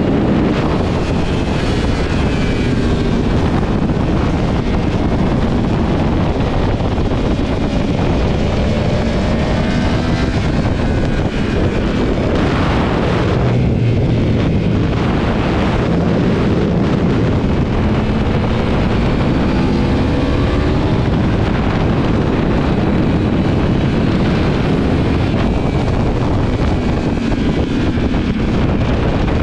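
2022 Yamaha R1's crossplane inline-four engine at full racing pace, heard from onboard with heavy wind buffeting on the microphone. Its pitch climbs again and again and drops back as it accelerates hard through the gears and slows for corners.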